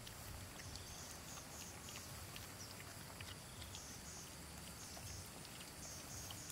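Several puppies eating cooked rice off a stone: faint, quick smacking and clicking of chewing and licking.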